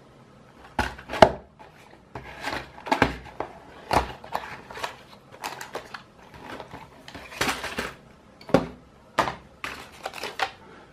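A small cardboard toy box being opened by hand, its flaps pulled apart and its contents handled. Cardboard, a paper instruction sheet and plastic bags of building bricks make a string of irregular sharp crackles and taps with rustling between them.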